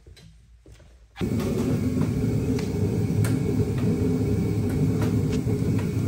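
Kerosene forced-air heater running: a loud, steady rush of fan and burner that starts abruptly about a second in. Light clicks of hand tools sound over it.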